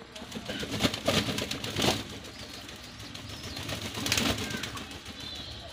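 Domestic pigeons cooing, with loud bursts of wing flapping about one, two and four seconds in as pigeons scuffle and wing-slap in a fight.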